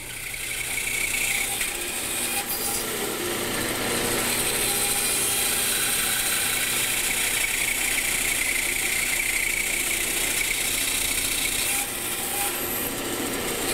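Bandsaw coming up to speed over the first few seconds, then running steadily while its blade cuts through wood, sawing out the waste of a bridle-joint notch. The sound dips briefly near the end.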